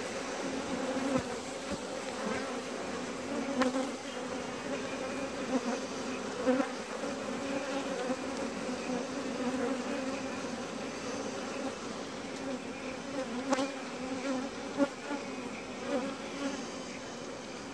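Close-up buzzing of honeybee workers clustered in a ball around their queen, a steady hum with a few faint clicks.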